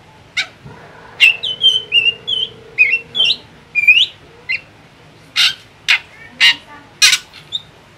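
Caged drongo calling: a quick run of varied whistled notes that slide up and down, then four loud, harsh calls about half a second apart near the end.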